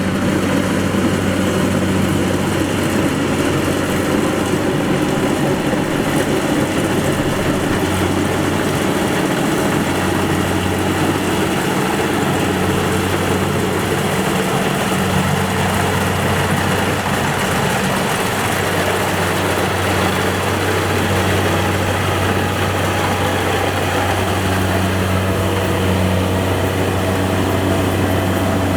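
Kubota DC-70 Plus combine harvester running steadily: a constant low diesel engine drone with dense mechanical noise over it.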